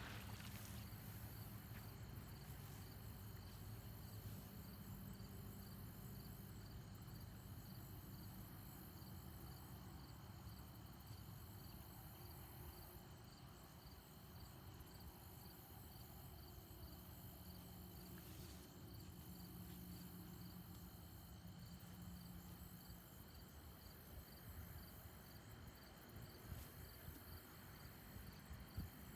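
Faint outdoor ambience with insects trilling steadily in a fast, even pulse, and a faint low rumble underneath.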